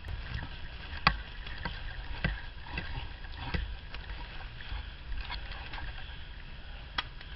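Footsteps of a person walking, sharp crunching steps roughly every half to two-thirds of a second, over a steady low rumble of wind and body-worn camera handling.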